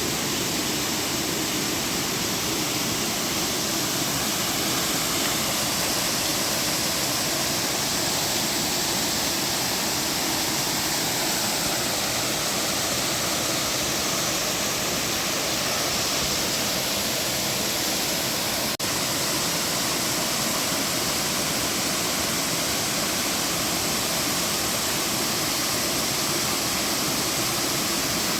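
Waterfall: steady rushing and splashing of falling water, with one split-second dropout about two-thirds of the way in.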